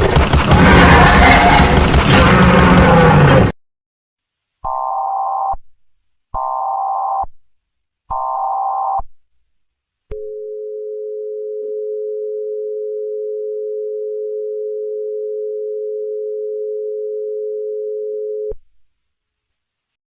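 A loud, rough din with low falling moans cuts off suddenly. After it come the Emergency Alert System header tones: three buzzy data bursts, each about a second long and a second apart. Then a steady two-tone attention signal sounds for about eight seconds and stops.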